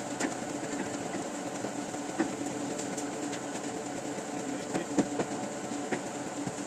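Steady hum of print-shop machinery, with a few light knocks and clatters from paper sheets being handled and stacked; the sharpest come about two seconds and five seconds in.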